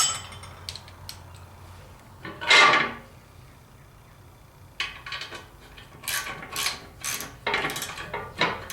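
Ratchet wrench being worked in short back-and-forth strokes, tightening nuts onto bolts, at about two strokes a second in the second half. A louder scrape of metal comes about two and a half seconds in.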